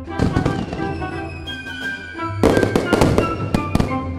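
Background music with firework sound effects laid over it: a burst just after the start, then a longer run of crackling bangs from about halfway through.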